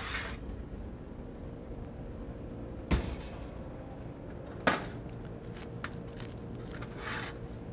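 Kitchen handling sounds over a steady low hum: two knocks, about three and five seconds in, as a baked pan is taken from the oven and set down on a stainless steel counter, then plastic wrap crinkles near the end.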